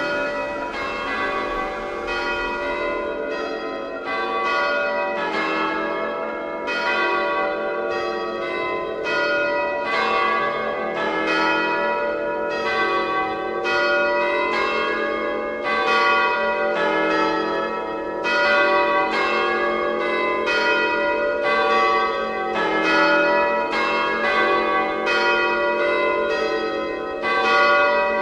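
Bells ringing in a continuous peal, stroke after stroke, each one ringing on under the next.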